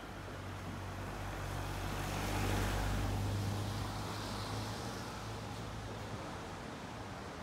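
A car passing by, its engine hum and tyre noise swelling to a peak about three seconds in and then fading away.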